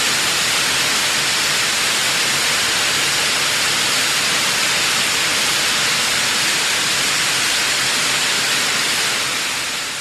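Waterfall spray: a steady, airy hiss of falling water, strongest in the upper range, that begins to fade out near the end.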